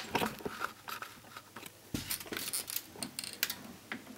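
Handling noise: a few faint, scattered clicks and light knocks.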